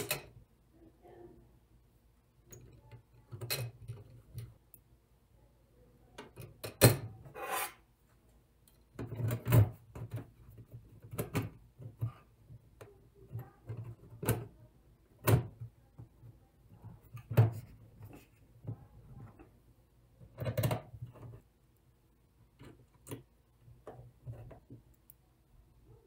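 Irregular clicks, knocks and scrapes from a Dell Wyse 5060 thin client being reassembled by hand, its parts pressed into place and screws driven into the case with a screwdriver.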